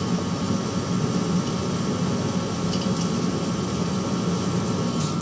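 St. Croix Afton Bay pellet stove running with a steady low drone and a thin, steady whine above it: the weird sound the owner is recording.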